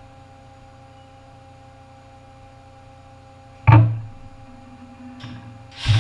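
Haas SL-40 CNC lathe: a steady machine hum with faint steady tones, a sudden loud clunk with a short ring about two-thirds through, and just before the end a loud rushing noise with a low hum starting up as the machine goes back to work.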